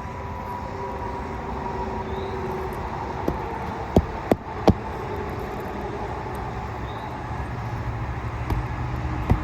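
Nails being driven through a replacement asphalt shingle: a quick run of four sharp knocks about three to five seconds in, and one more near the end, over a steady low rumble.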